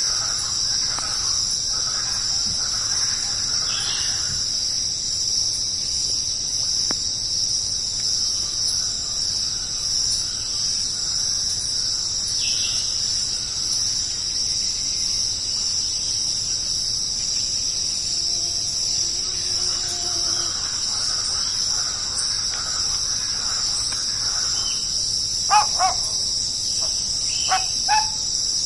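A steady, high-pitched insect chorus, with a few short high calls near the end.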